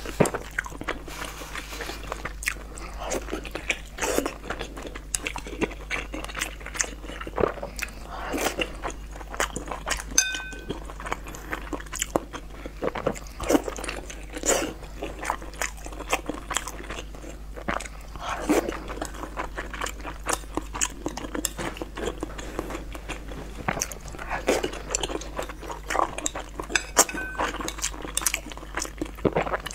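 Close-miked eating of chili-oil-dressed dumplings: a steady irregular run of wet biting, chewing and lip-smacking sounds.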